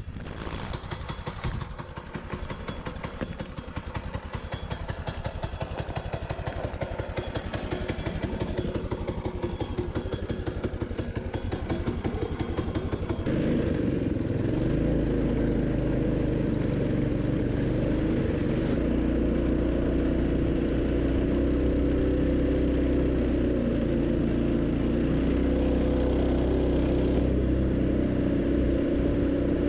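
Mini bike engine running, first with a fast, even pulse, then from about halfway on as a louder, steadier drone.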